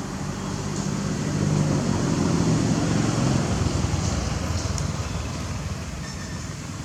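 Low engine hum of a passing motor vehicle, growing louder and then fading away.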